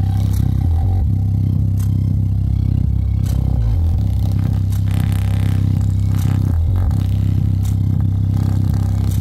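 Sony speaker's woofer playing loud, deep bass from a song, the note shifting now and then, with a few scattered clicks while fingers press on the moving dust cap. The woofer is being driven lower than it is designed for.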